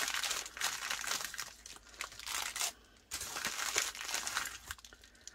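Plastic packaging crinkling as a small bag of beads is handled, in two stretches with a short pause about three seconds in.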